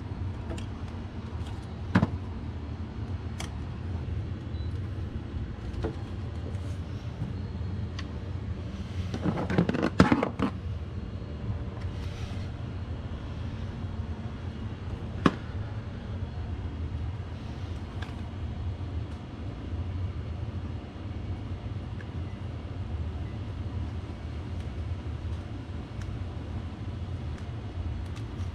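Occasional sharp clicks and one louder rattling clatter about ten seconds in, from hand tools and parts being handled in a car's engine bay, over a steady low rumble.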